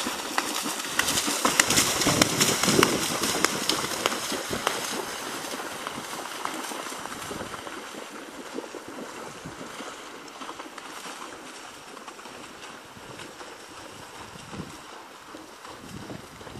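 Horse's hooves splashing through shallow floodwater in quick strikes, loudest in the first few seconds and fading as the horse moves away.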